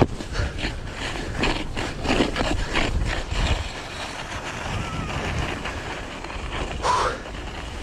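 Snow blades scraping over packed, tracked snow in a run of quick turns, steadier toward the end, with wind rumbling on the microphone.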